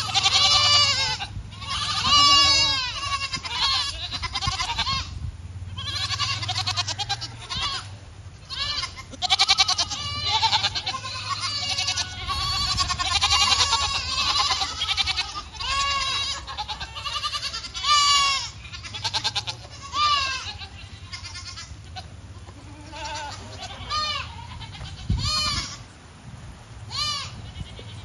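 A herd of goats bleating over and over, many calls overlapping, then thinning to separate calls near the end.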